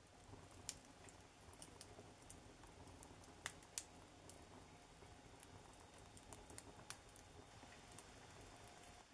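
Wood fire crackling in an open stove: faint, irregular pops and snaps, a few louder ones, over a low steady hum.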